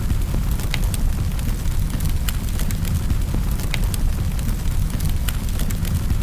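Wood fire crackling in a fireplace: a steady low rumble of flames under irregular sharp pops and crackles, about one every second.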